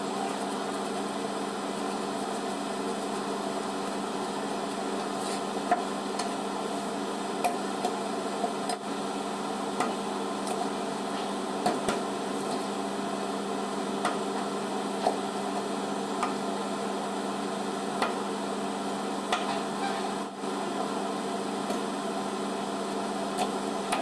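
Knife cutting through a fish into steaks, its blade knocking sharply on the cutting board about every second or two. A steady machine hum runs underneath.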